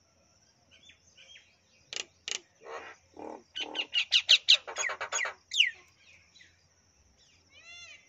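Common myna calling: a varied run of loud clicks, harsh grating notes and a quick series of squawks from about two to five seconds in, ending with a falling whistle. A faint, steady, high insect trill runs behind it.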